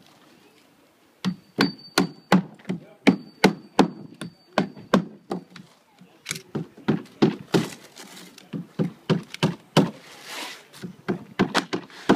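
Asphalt roofing shingles being nailed onto a plywood board: a rapid run of sharp strikes, about three a second, starting about a second in.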